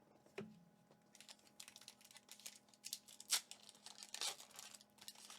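Foil Pokémon booster pack wrapper being torn open and crinkled, a quick run of crisp crackles after a soft thump about half a second in.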